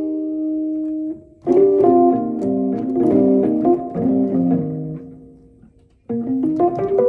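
Fender Rhodes electric piano played, its struck tines sounding chords and moving notes. A held chord stops about a second in and a new phrase begins. That phrase dies away almost to silence near the six-second mark, and playing resumes shortly after.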